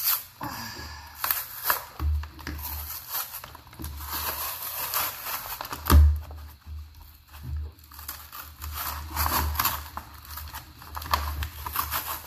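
Cardboard backing of a Pokémon trading card blister pack being torn and peeled off the plastic blister, a run of ripping and crinkling, with a loud thump about halfway through.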